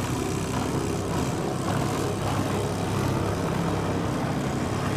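Small boat's outboard motor running steadily: a continuous low drone.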